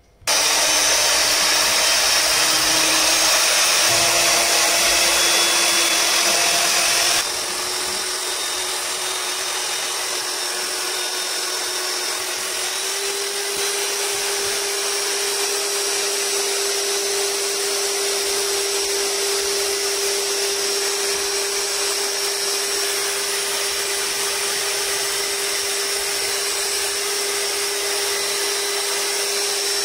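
Electric hand mixer running steadily, its beaters whisking eggs and oil in a bowl to emulsify them into thick mayonnaise. The motor whine steps up in pitch about four seconds in and again near the middle, and drops a little in loudness about seven seconds in.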